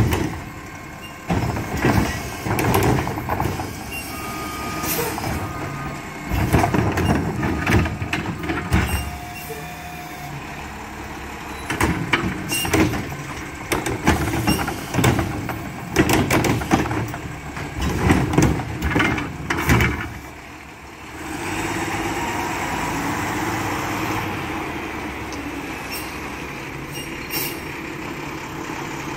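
Mack LR garbage truck with a Heil Freedom front-loader body and Curotto-Can arm grabbing and dumping trash carts: repeated clanks and bangs of the carts and arm over the running engine. About 21 seconds in the banging stops and the truck's engine runs steadily as it moves off.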